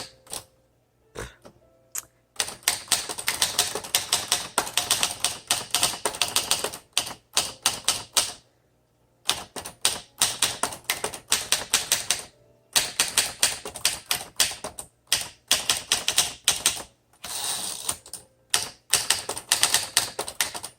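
Typing on a 1954 Smith Corona Skyriter portable manual typewriter: rapid runs of typebar strikes in a steady rhythm, broken by a few short pauses. The keys and paper advance are working smoothly after earlier sticking.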